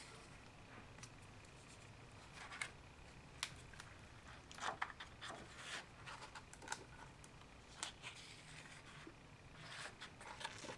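Hands opening a large hardcover book and turning its heavy pages: faint, scattered paper rustles with soft taps and clicks.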